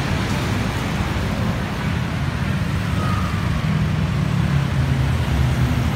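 Busy city road traffic: car, taxi and bus engines running with steady tyre and road noise, a low engine hum swelling a little midway.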